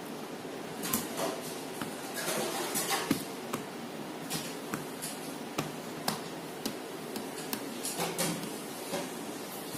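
Laptop keys clicking irregularly as a baby's hands tap and press the keyboard, a scatter of short clicks with small pauses between them.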